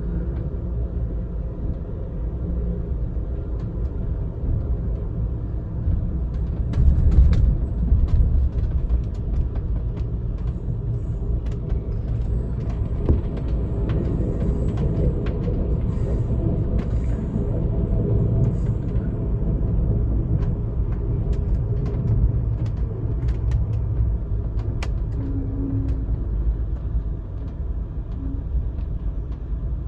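Steady low rumble of the Amtrak California Zephyr as heard from inside a passenger car, with scattered clicks and knocks in the middle stretch.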